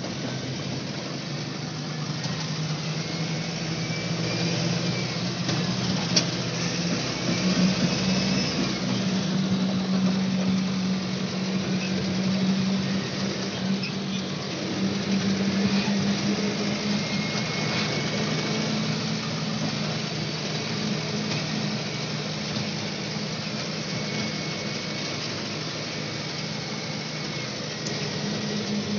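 Vehicle engine humming steadily under road and tyre noise, heard from inside the cabin while driving, with one sharp click about six seconds in.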